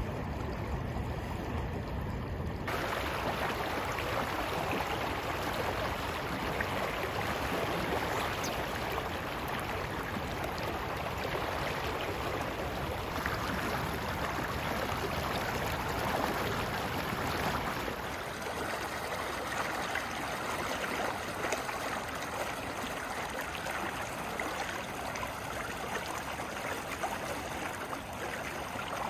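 Steady rush of a fast-flowing river current, a continuous even hiss of moving water. Its tone shifts abruptly about three seconds in and again past the middle.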